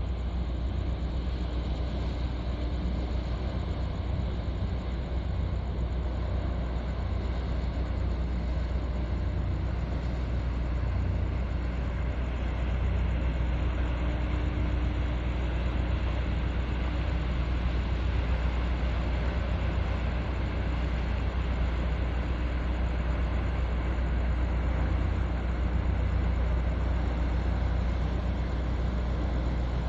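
Steady low rumble of a container ship's engine as the ship passes close by. It grows slightly louder about halfway through.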